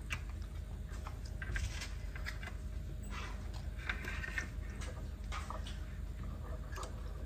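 Light scattered clicks and rustles of plastic plugs and cables being handled, over a steady low hum.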